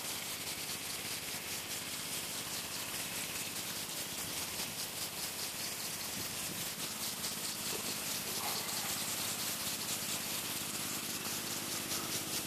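Irrigation sprinklers spraying water over a field: a steady hiss of spray with a fine, even rattle, and a steady low hum underneath.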